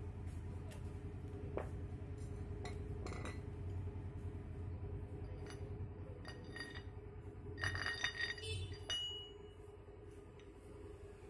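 Steel parts of a homemade cylinder-liner puller clinking as its plate and nut are handled and turned on the long threaded rod: scattered light clicks, with a quick run of ringing metal clinks about two-thirds of the way through that ends in one ringing note.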